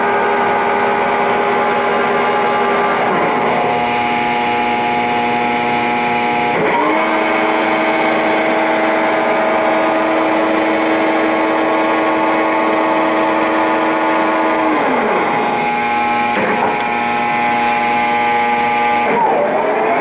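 Clausing Boravia SUS63H2000 engine lathe running under power: a steady whine of several tones. It slides down to a lower pitch about three seconds in, up again near seven seconds and down around fifteen, then changes twice more near the end as the spindle speed is changed.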